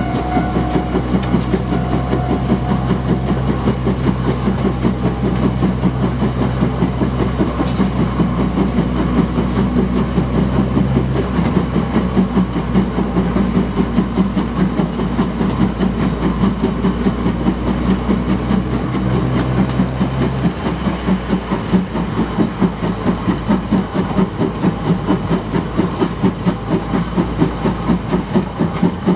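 Steam locomotive C11-325, a C11-class 2-6-4 tank engine, running at speed with its exhaust chuffing in a quick, even rhythm, heard from a car pacing it. A steady low drone lies under the chuffing and drops away about two-thirds of the way through.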